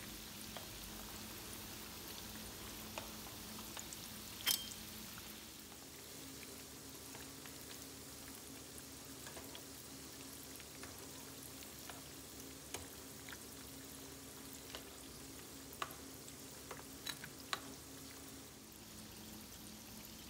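Beef tikka pieces deep-frying in hot oil in a skillet: a faint, steady sizzle, with scattered light clicks of metal tongs against the pan as the pieces are turned once one side is golden.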